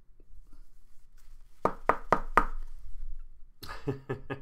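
A series of sharp knocks: four evenly spaced knocks about a second and a half in, then a quicker run of about six knocks near the end.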